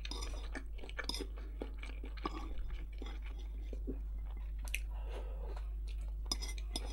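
Close-up chewing and mouth sounds of a person eating wok-fried rice with meat and vegetables, with scattered soft clicks of a spoon against the plate, over a steady low hum.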